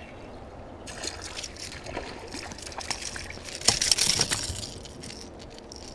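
Water splashing and sloshing beside an inflatable boat, with a few sharp knocks; loudest around four seconds in.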